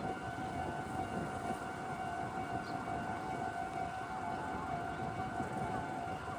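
Japanese railway level-crossing alarm sounding continuously, a steady high electronic tone held on while the crossing stays closed, over a low rumble.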